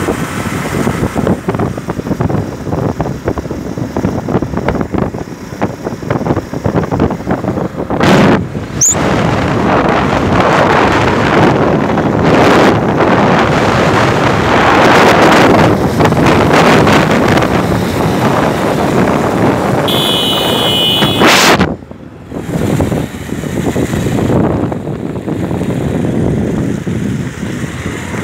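Wind buffeting a phone's microphone on a moving motorcycle, mixed with the running of motorcycle engines alongside. A short high-pitched tone sounds about twenty seconds in, followed by a brief drop in the noise.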